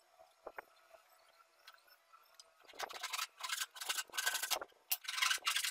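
Faint pencil scratches on a small wooden block, then, from near the middle, a hand tool cutting wood in quick back-and-forth strokes, each a fraction of a second long with short gaps between.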